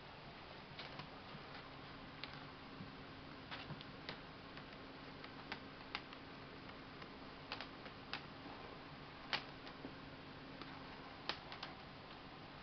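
Kittens' paws and claws clicking and tapping on a hardwood floor as they play, in irregular sharp ticks, the loudest about nine and eleven seconds in. A faint steady hum sits underneath.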